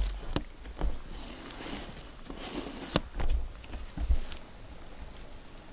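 Footsteps on dry, brushy ground and the rustle of clothing and gear, with a few sharp clicks and low thumps.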